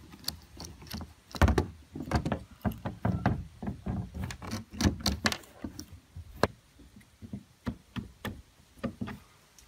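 Idle air control valve being taken apart with a screwdriver on a plastic lid: a string of irregular clicks, taps and knocks of the tool, screws and metal valve body, thicker in the first half and more spaced out later.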